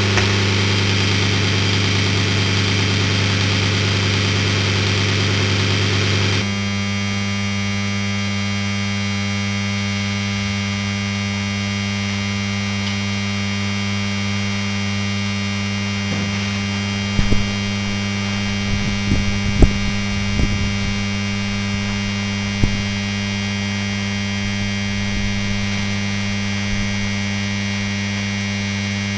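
Danfoss Maneurop MTZ100 compressor motor humming loudly on direct mains power, apparently stalled and drawing heavy current (around 38 A) with its thermal cutout bypassed, so the windings are overheating. The hum drops a step about six seconds in, and a few sharp crackles and pops come between about 17 and 23 seconds.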